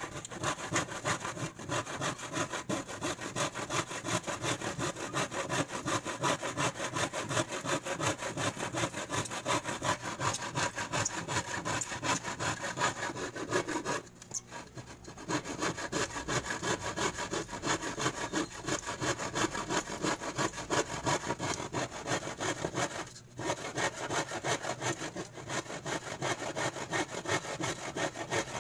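Handsaw cutting through plywood with steady back-and-forth rasping strokes, stopping for about a second midway and briefly again later.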